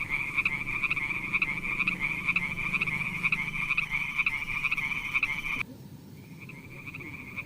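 Frogs calling in a steady chorus of rapid, pulsing croaks. About five and a half seconds in the sound drops out abruptly, then the calling returns fainter.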